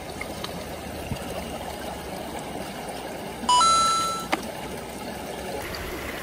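Clear mountain stream trickling and flowing over stones, heard close to the water. About three and a half seconds in, a short electronic beep of two rising notes sounds and fades within about a second.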